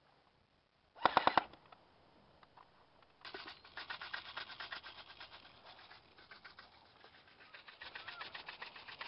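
Airsoft electric rifles (AEGs) firing on full auto: a short, loud burst of rapid shots about a second in, then from about three seconds in a long, quieter stream of rapid fire that keeps going.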